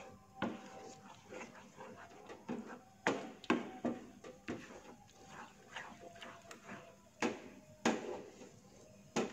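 Wooden spatula stirring thick, sticky flour dough in a nonstick frying pan, giving irregular knocks and scrapes against the pan about every half second.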